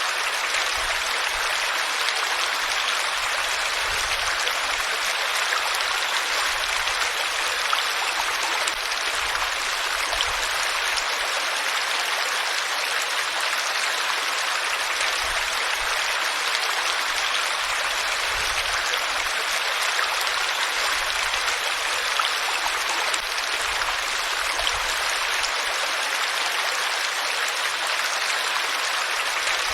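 Flowing water, a steady and even hiss with no breaks or changes.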